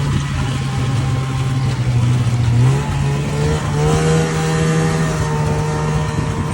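A motor vehicle's engine running steadily; its pitch rises about three seconds in and then holds at the higher speed.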